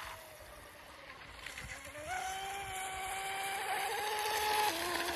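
Electric radio-controlled boat's motor whining as the boat runs out on the water. The pitch rises about two seconds in, holds steady, then drops near the end as the throttle is eased.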